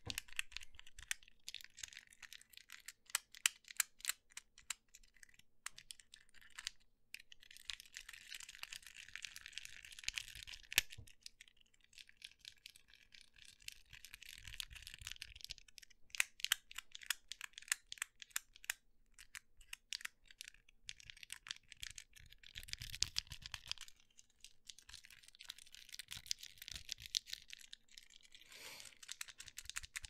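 Fidget Cube joystick worked close to the microphone, pushed in short flicks and rolled in circles: rapid runs of small plastic clicks and ticks with stretches of scratchy scraping.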